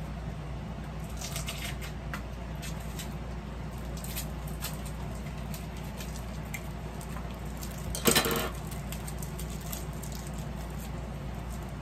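Scissors and fingers scraping and picking at the taped end of a cardboard mailing tube: scattered small scratches, clicks and rustles, with one short, loud rip or scrape about eight seconds in as the end is worked open. A steady low hum runs underneath.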